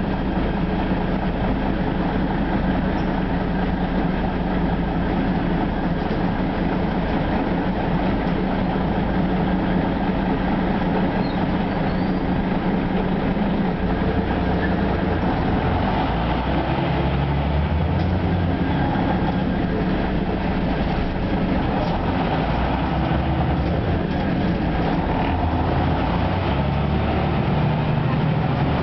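Interior running noise of an Ikarus 260 city bus under way: its diesel engine and road rumble heard from inside the passenger cabin. The engine note shifts up and down in pitch in the second half.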